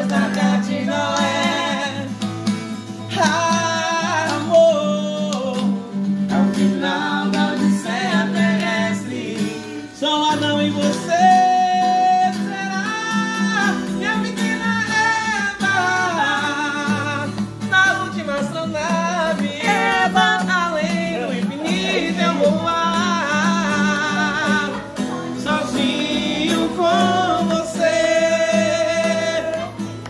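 Singing accompanied by an acoustic guitar, a live informal performance of a Brazilian song, the voice carrying long held notes over continuous guitar playing.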